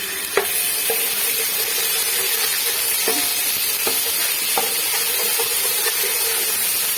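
Ginger-garlic paste frying in hot oil with whole spices and mint, sizzling steadily as it is stirred, with a few sharp knocks of the stirring spoon against the pot.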